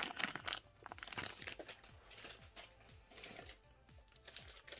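Sealed plastic Happy Meal toy bags crinkling as they are handled and set down, a string of small irregular crackles.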